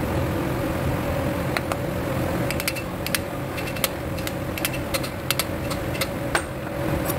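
Irregular light metallic taps and clicks of a steel hand tool against a wheel hub's grease cap, over a steady machine hum.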